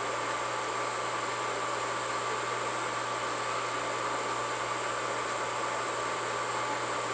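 Steady background hiss with a low hum and a faint steady whine, unchanging throughout.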